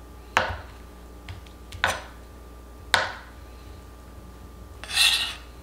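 Kitchen knife chopping through a block of tofu onto a cutting board: three sharp knocks about a second apart. Near the end comes a short scraping clatter as the knife blade carries the diced tofu onto a ceramic plate.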